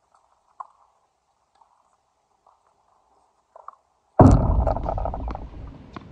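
Faint scattered ticks, then about four seconds in a sudden loud thump close to the microphone, followed by rumbling, rattling noise with a few clicks that fades over the next two seconds.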